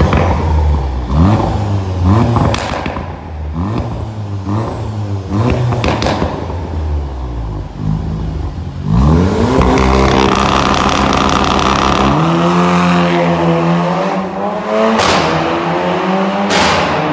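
Volkswagen Golf R Mk7's turbocharged 2.0-litre four-cylinder revving hard through a loud exhaust, with sharp pops and bangs between the revs. About nine seconds in, the engine climbs in a long rising rev and holds high, with more pops near the end.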